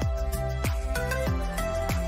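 Background music: a steady beat of drum hits that drop in pitch, about three every two seconds, under a held melody.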